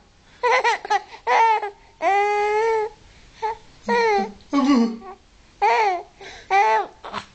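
Baby babbling in a string of short, high-pitched vocal sounds, with one longer held sound about two seconds in.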